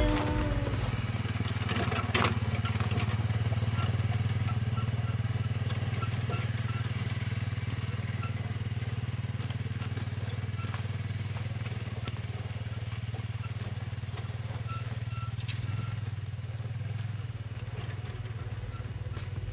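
Quad bike (ATV) engine running steadily as it drives off over rough ground towing a trailer, slowly growing quieter. A single sharp knock comes about two seconds in.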